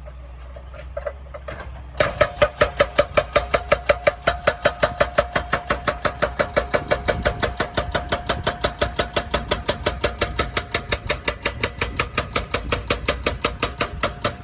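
Excavator-mounted hydraulic breaker hammering in rapid, even blows, about six a second, starting abruptly about two seconds in over the low, steady running of the excavator's engine.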